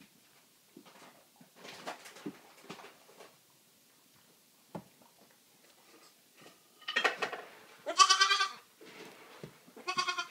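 Baby goats (goat kids) bleating: three loud, high, wavering bleats in the second half.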